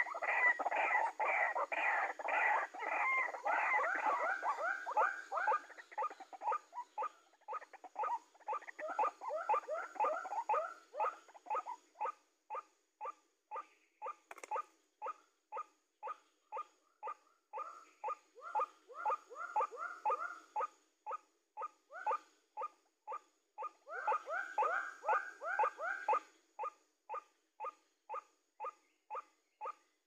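White-breasted waterhen calls: a monotonous, rhythmic series of short 'kwak' notes repeated about twice a second. Thicker passages of overlapping calls come in the first few seconds and again near the end.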